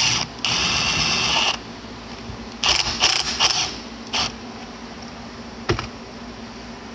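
Pneumatic air ratchet spinning the forcing screw of a homemade drive gear puller on a Bendix air compressor, pulling the drive gear off. It runs with a steady high whine, stops for a moment just after the start, then runs again for over a second. Several short bursts follow, then a single sharp click.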